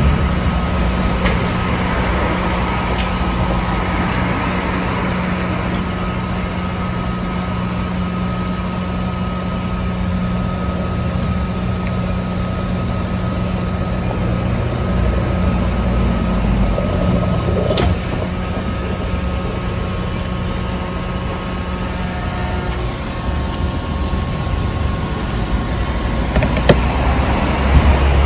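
Petrol-station fuel dispenser's pump running with a steady hum while fuel flows into a car's tank, cutting off about 23 seconds in. A few clicks and knocks follow near the end.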